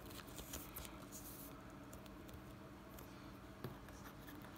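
Faint rustling and light scratching of a trading card being slid into a clear plastic card sleeve and handled, with a few small clicks, over a low steady hum.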